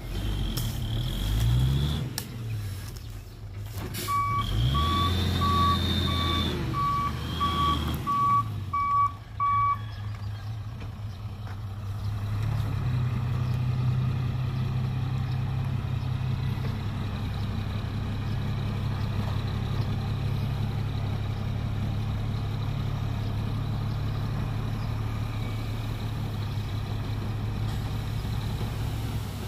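Diesel dump truck reversing, its engine revving under a steadily beeping backup alarm for several seconds. From about twelve seconds in, the engine runs at a steady raised speed while the tipper bed rises to dump its load of soil.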